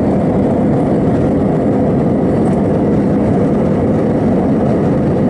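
Airliner cabin noise in flight: the jet engines and rushing air make a deep, even, loud roar.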